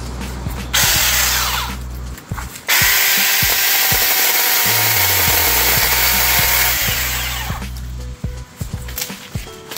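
Cordless electric mini chainsaw running in two bursts: a short one of about a second and a half, then, after a brief pause, a longer one of about five seconds that tapers off near the end.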